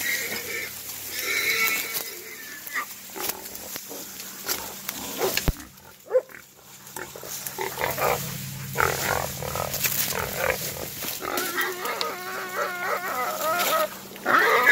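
Wild boar squealing in distress while Laika hunting dogs hold it by biting: short squeals at the start and a long wavering squeal near the end, with brush crackling and rustling in between.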